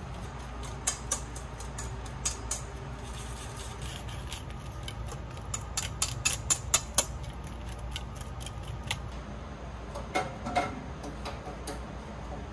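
A metal utensil clicking against a stainless steel mixing bowl as beaten egg, potatoes and onions are stirred together. The clicks are scattered at first, then come in a quick run of about four or five a second, followed by two duller knocks about ten seconds in.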